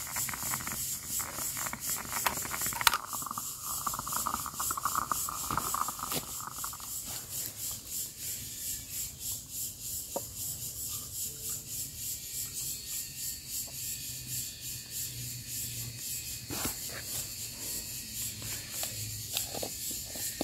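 Forest insects chirping in a rapid, even pulse, with a stretch of hiss for a few seconds near the start and a few sharp knocks.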